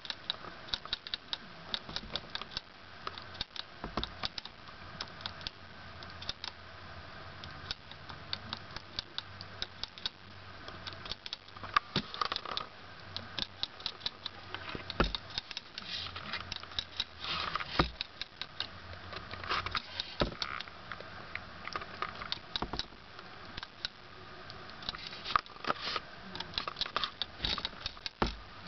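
Hamster drinking from a water bottle's metal sipper tube: rapid, irregular clicking and rattling at the spout as it licks, in quick runs of several clicks a second.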